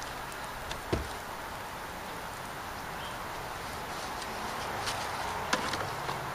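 Rag rubbing over a small plexiglass panel as it is wiped clean, a soft steady scrubbing with one knock about a second in and a few light clicks near the end.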